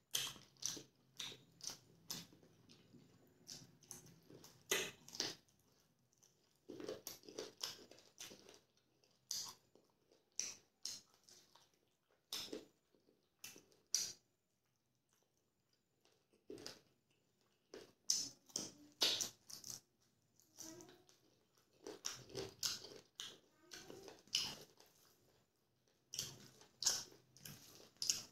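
Close-up eating sounds of a man eating rice and chicken curry by hand: chewing with irregular wet clicks and lip smacks, pausing for about two seconds about halfway through.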